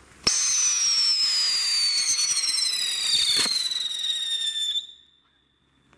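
Vico Area 51 whistling flying spinner firework igniting with a sudden onset and giving one loud, high whistle that slides slowly down in pitch as it climbs, with a sharp crack about three and a half seconds in. The whistle cuts off abruptly near five seconds in.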